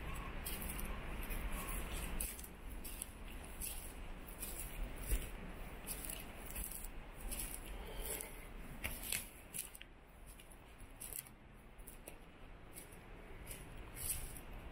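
Footsteps crunching and rustling through forest undergrowth: a string of irregular crisp crunches, busier and louder in the first couple of seconds.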